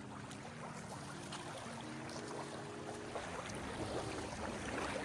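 Quiet background music: slow held notes stepping in pitch, over a steady rushing noise.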